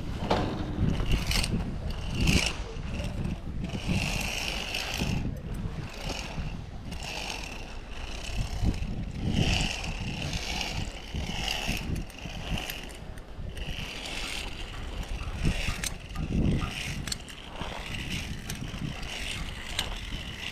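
A zip-line trolley's pulleys run along a steel cable with a whirring that swells and fades. Wind rumbles on the microphone, with scattered metallic clicks and scrapes from the rigging.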